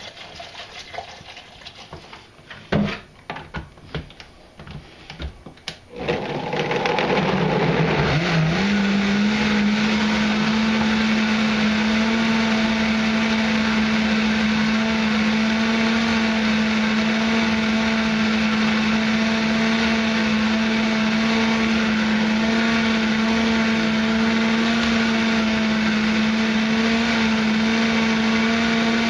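A few knocks, then a countertop blender starts about six seconds in, pureeing fresh cranberries, raisins, sugar and water into wine must. The motor rises in pitch over the next two seconds and settles into a steady whine.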